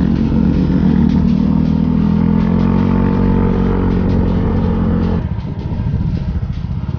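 Yamaha scooter engine running at riding speed, a steady hum over low rumbling noise, easing off about five seconds in as the scooter slows.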